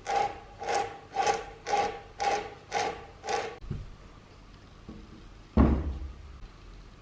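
Rhythmic rasping strokes, about two a second, each with a slight ringing tone, stopping a little over three seconds in. Near the end comes a single loud thump.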